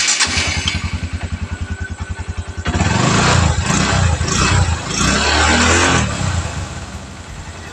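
Yamaha Verza 150's single-cylinder four-stroke engine idling, then revved several times for about three seconds and settling back to idle. It runs smooth after its worn, too-loose cam chain was replaced with a new chain and automatic tensioner, which cured the ticking.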